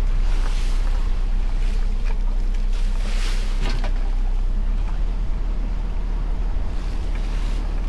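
Boat engine running steadily at a low hum, with water rushing against the hull and wind on the microphone; a couple of brief rushes of water or wind stand out, about half a second in and again around three seconds in.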